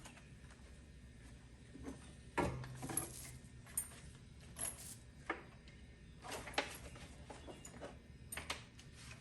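Scattered light clicks, taps and knocks of tools and metal being handled, the loudest knock about two and a half seconds in; the angle grinder is not running.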